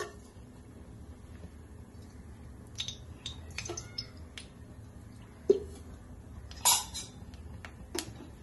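Scattered light clinks and taps of kitchen utensils and cookware as oil is added to a kadhai heating on the stove, over a low steady hum. There is a sharp knock about five and a half seconds in and a louder, noisier clatter near seven seconds.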